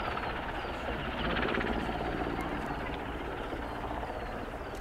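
Military helicopter flying at an airshow display: a steady rush of rotor and turbine noise, loudest about one to two seconds in and easing off slightly toward the end.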